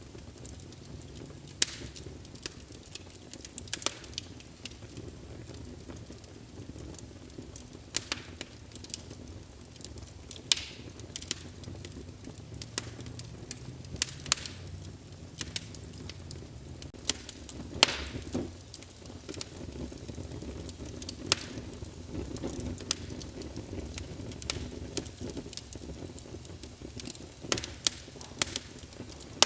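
Wood fire crackling in a fireplace: scattered sharp pops at irregular intervals over a steady low rumble of the burning logs.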